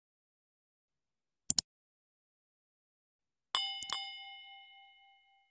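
Sound effects of a subscribe-button animation. A quick double click comes about a second and a half in, then a bright notification-bell ding struck twice in quick succession about three and a half seconds in, ringing out for about a second.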